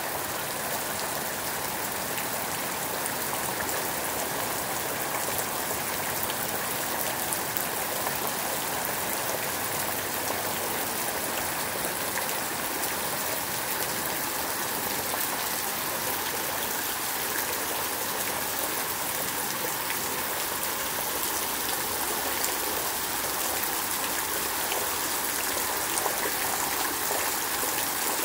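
Heavy rain falling steadily on trees, plants and the ground, a constant hiss with no letup.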